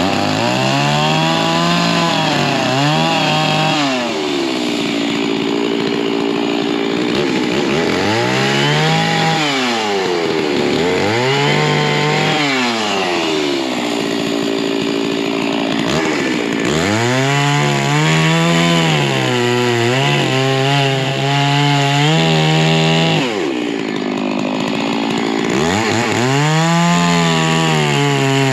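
Stihl chainsaw bucking firewood, its engine revving up and dropping back again and again, the pitch swinging up and down as the chain cuts into the logs.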